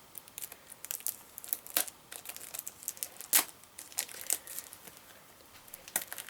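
Wrapping on a CD box set being torn open and peeled away by hand: irregular crinkling and tearing crackles with a few sharper snaps.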